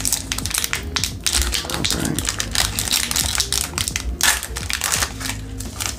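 Foil Pokémon booster-pack wrapper being torn open by hand, a dense run of crinkling and crackling.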